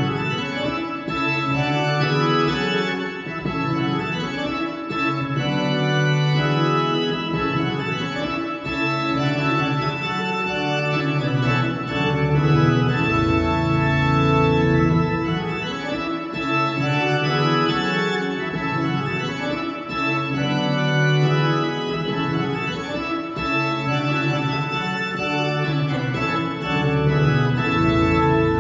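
Postlude played on a digital piano set to an organ voice: slow, sustained chords that hold without dying away, moving from chord to chord every second or two.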